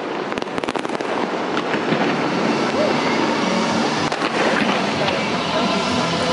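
A fireworks display, with many aerial shells going off together in a continuous barrage. It crackles and pops densely, with sharp cracks packed closest in the first second or so.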